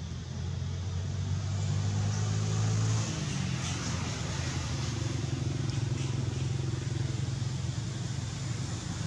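A motor engine running steadily nearby, with a low, even hum whose pitch shifts about three seconds in.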